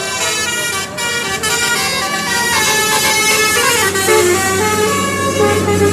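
Bus 'basuri' musical horn playing a melody of stepped notes, with a falling glide about three and a half seconds in.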